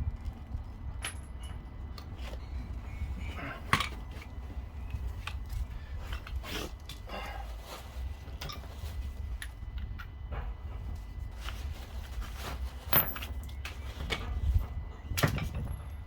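Scattered metallic clinks and knocks from refitting a heavy car road wheel to its hub. A steady low rumble runs underneath.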